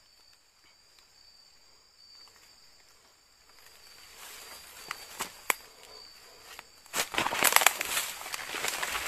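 Footsteps rustling and snapping through leaves and undergrowth. They are faint at first with a couple of sharp snaps about five seconds in, and much louder and closer from about seven seconds in as someone walks up.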